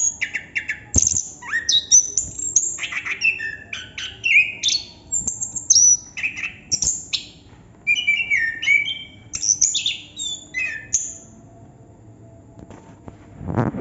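Chestnut-capped thrush (anis kembang) singing a continuous, varied song of quick whistled and chirping phrases; the song stops about eleven seconds in. A brief rustling noise comes at the very end.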